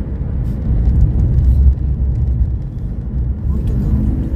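Car's road and engine noise heard from inside the cabin while driving at about 35 mph: a steady low rumble.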